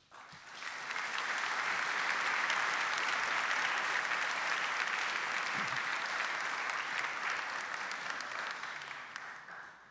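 Audience applauding. It builds up over the first second, holds steady, and dies away near the end.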